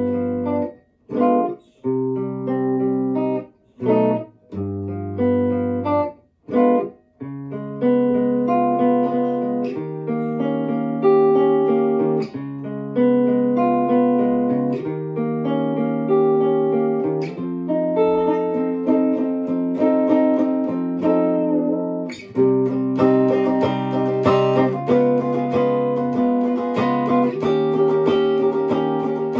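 Gretsch hollow-body electric guitar playing chords. For about the first seven seconds the chords are short and clipped with gaps between them, then they ring on continuously, with a brief break about three quarters through before fuller strumming.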